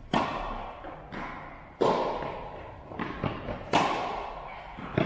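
Tennis ball struck by rackets in a rally opened by a serve: sharp hits about every two seconds, the loudest a little past the middle, with a few lighter ball bounces in between. Each hit rings on in the echo of a metal-walled indoor tennis hall.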